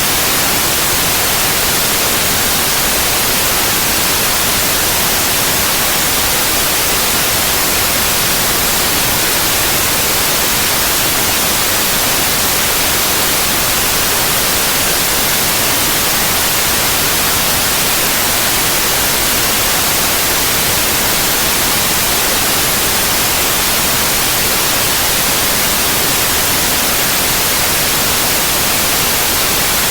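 Steady white noise: an even, unbroken hiss across the whole range of pitch, loudest in the treble, with no changes.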